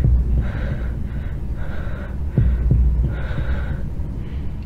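Horror-film heartbeat sound effect: a slow heartbeat of double thumps, one pair about two and a half seconds in, over a low hum, with repeated breaths.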